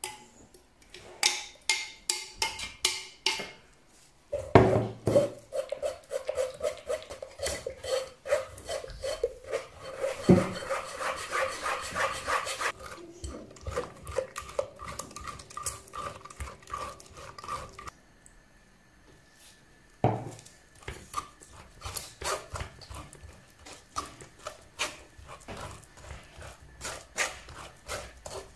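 A metal spoon scraping and knocking against a stainless steel mesh strainer as purée is pressed through it, in quick repeated strokes. Through the middle stretch the strainer rings with a metallic tone; the scraping stops for a moment about two-thirds of the way in, then resumes with a knock.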